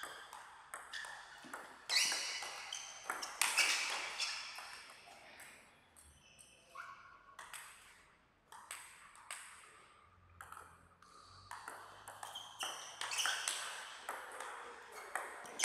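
Table tennis rally: the ball clicking off the rubber paddles and bouncing on the table in quick runs of sharp pings, with a lull about eight seconds in.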